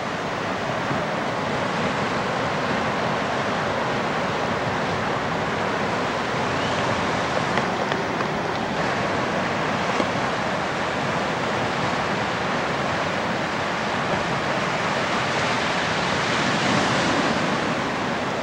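Ocean surf breaking and washing through the shallows: a steady rush of waves that swells a little near the end.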